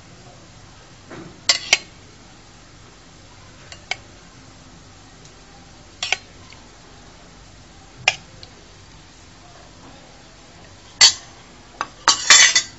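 A metal spoon clinking against a bowl: several sharp, separate clinks a couple of seconds apart, then a quick run of them near the end, as sugar syrup is spooned over a sponge cake layer.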